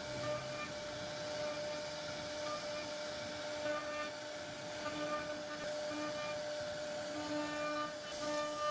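CNC router spindle running and carving a relief pattern into wood: a steady high whine over the hiss of the cut, with short higher-pitched tones coming and going as the machine's axes move the bit.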